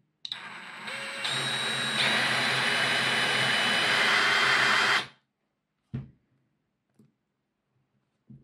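Small electric drill running and drilling out a rivet on a model locomotive, speeding up in steps over the first two seconds, then running steadily for about five seconds before stopping. A couple of small clicks follow.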